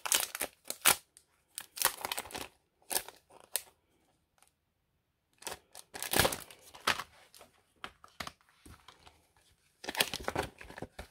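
Clear plastic packaging sleeve of a craft die set crinkling and rustling as it is handled and opened. It comes in irregular crackly bursts, with a short pause about four seconds in and a louder burst near the end.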